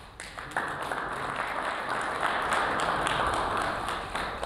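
Applause from a small audience, many hands clapping together; it swells about half a second in and fades near the end.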